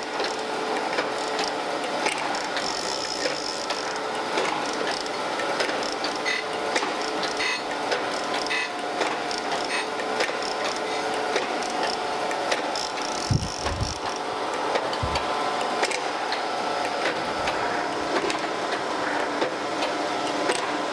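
Landis surface grinder running, its wheel grinding the tops of camel-back straight-edge castings in a heavier roughing cut as the table strokes back and forth: a steady hum with a gritty, ticking grinding noise throughout. A few low thumps come about two-thirds of the way through.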